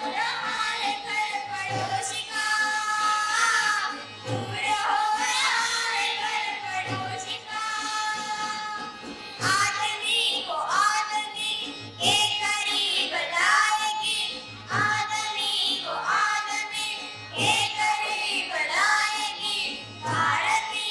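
A song with a high singing voice over music, with a low beat about every two and a half seconds.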